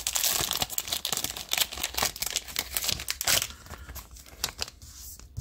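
Thin plastic penny sleeves crinkling and crackling as they are handled to sleeve a trading card. The sound is dense for the first three and a half seconds, then thins to scattered light ticks.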